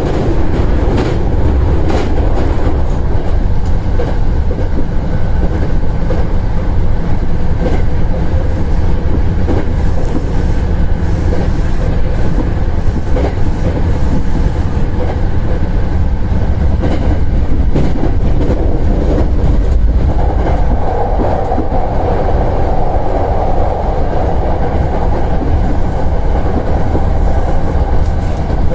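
Hankyu electric train running at speed, heard from inside the front car: a steady rumble of wheels on rail with irregular clicks from rail joints and points. The rumble is heavier at first, on a steel truss bridge, and a higher-pitched rushing comes into the mix about two-thirds of the way through.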